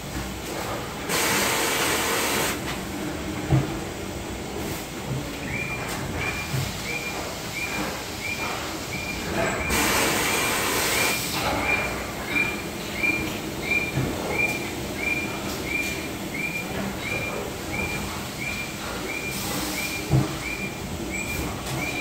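Factory floor noise: a steady machine hum with three bursts of hissing, and from about five seconds in a short high-pitched beep repeating about twice a second, with scattered light knocks.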